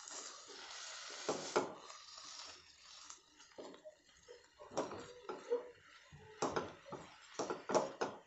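Silicone spatula stirring thick mashed potato and pea stuffing in a nonstick pan, making irregular soft scrapes and knocks against the pan.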